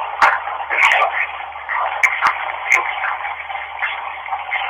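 Running tap water: a steady splashing hiss with irregular sharp spatters and short surges.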